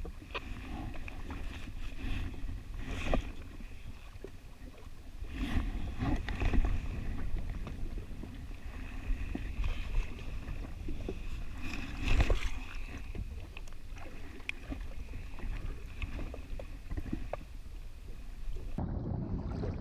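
Jet ski engine idling, the motor of a 2019 Yamaha WaveRunner FX HO kept running to hold the ski on the spot, over a steady low rumble of wind and water, with a few louder irregular surges.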